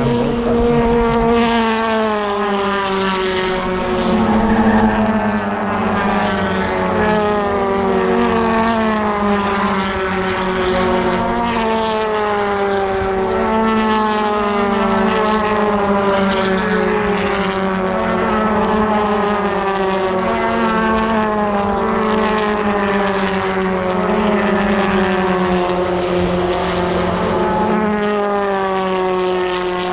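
Several touring car engines at racing speed, overlapping, their pitch falling and climbing again and again with gear changes.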